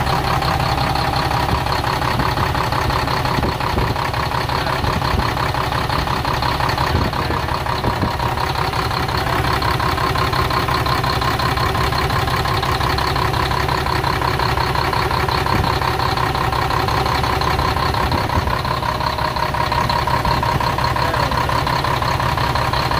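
Cummins M11 inline-six diesel engine idling steadily with its valve cover off, the rockers and jake brakes working in the open, on its first run after a new cylinder head, injectors, rocker assembly and jake brakes; the owner judges that everything sounds good.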